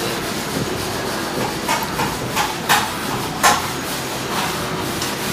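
A hand mixing sticky, shaggy bread dough in a glass bowl, with a few sharp knocks against the bowl around the middle, over a steady background hiss.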